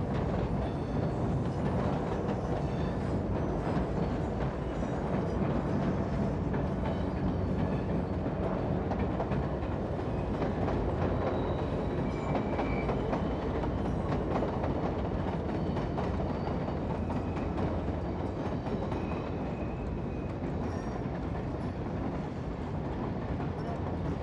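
Train running on rails: a steady rumble with wheel clatter over the track and brief high squeals scattered through it.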